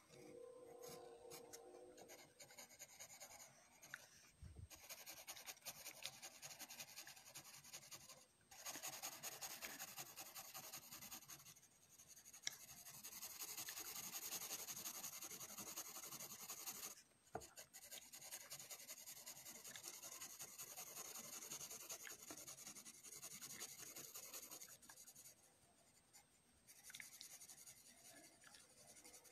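A wooden graphite pencil scratching faintly across paper as it shades, in runs of a few seconds broken by short pauses between strokes.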